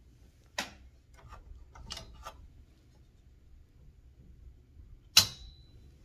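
Mechanism of a 1976 Smith Corona Super-G manual typewriter worked by hand: a sharp click about half a second in, a few lighter clicks around two seconds in, then a loud metallic clack with a brief ring a little after five seconds.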